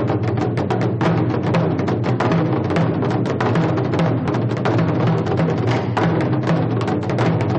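Drum beaten in a fast, unbroken run of strikes, several a second, over a low ringing drum tone.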